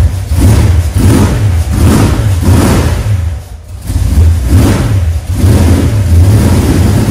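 440 big-block V8 with a tunnel-ram intake running in the car, its sound rising and falling about once a second, with a brief drop about halfway through.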